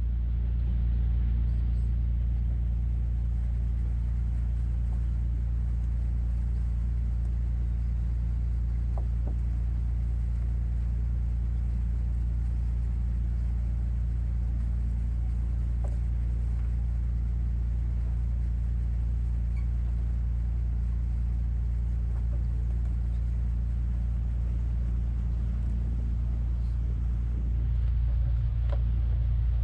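A boat's engine running steadily, a low, even drone heard from on board.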